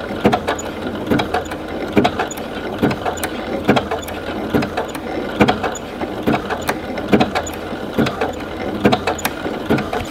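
Computerised sewing machine (W6 N 8000 Exklusive) running slowly on its button-sewing stitch, the needle going through a button's holes. Each stitch gives a knock, about two a second, over a steady motor hum.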